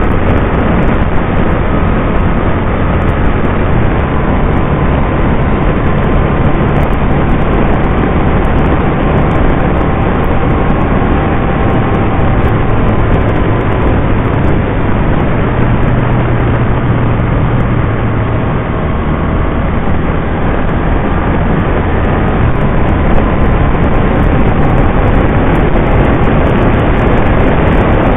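Can-Am Spyder RT three-wheeler cruising at road speed: a loud, steady rush of wind and road noise with the engine's hum underneath.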